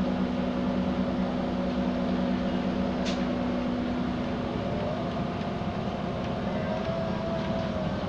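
Cabin noise of an Iveco Crossway bus under way: the engine and tyres give a steady drone. The engine's low hum eases about three seconds in, and there is a brief high squeak at about the same moment.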